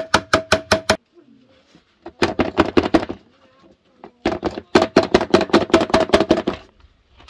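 Square metal baking pan full of cake batter knocked rapidly against a wooden table to level the batter, in three bursts of quick knocks, about seven or eight a second, each with a short metallic ring.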